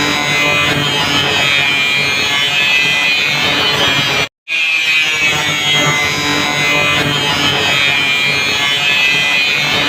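Electric grinder running continuously while cutting or grinding metal: a dense, steady whine with a rasping edge. It drops out for a split second about four seconds in, then starts again.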